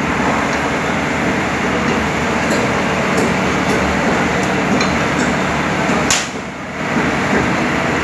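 Diesel engine of a Kobelco long-reach demolition excavator running steadily, with a few light metallic clinks and one sharp knock about six seconds in.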